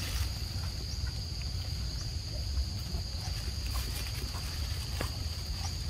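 A steady, high-pitched insect drone over a constant low rumble, with a few faint ticks.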